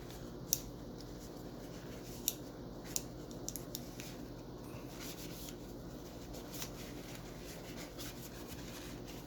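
Small parts of a gas blowback airsoft pistol being handled and wiped clean with paper: light rubbing with a few sharp plastic-and-metal clicks, over a steady low hum.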